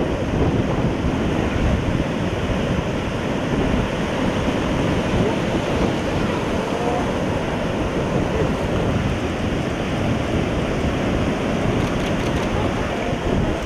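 Ocean surf breaking and washing in a steady rush, with wind buffeting the microphone.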